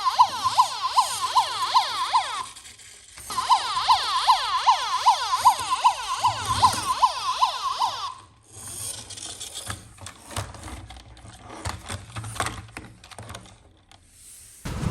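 An emergency siren warbling fast, rising and falling about five times a second, with a short break between two and three seconds in, and cutting off about eight seconds in. After it comes a quieter stretch of irregular clicks and rattles.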